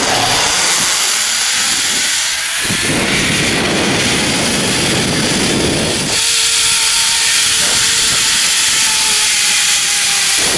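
Zipline trolley pulleys running fast along a steel cable, a loud steady hiss, with wind rumbling on the microphone through the middle. For the second half a faint whine sits under the hiss, dropping slightly in pitch.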